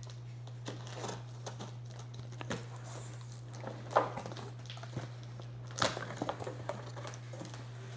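Cardboard box and plastic packaging being cut open and handled: scattered crinkles, scrapes and taps, with a sharper knock about four seconds in and again near six seconds.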